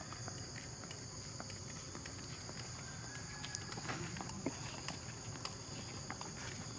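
A steady high-pitched drone of insects in the surrounding vegetation, with faint scattered clicks and ticks over it.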